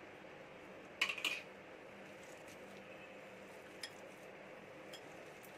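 A steel spoon clinks against a glass mixing bowl a couple of times in quick succession about a second in, followed by a few faint single ticks over low, steady room noise while the chickpea mixture is mashed by hand.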